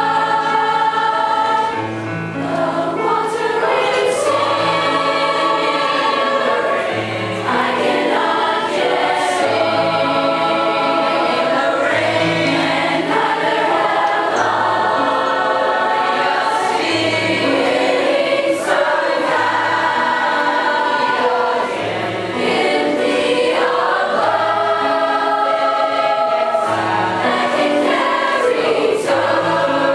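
Large youth choir singing a slow song in parts, with low notes pulsing about once a second beneath the voices.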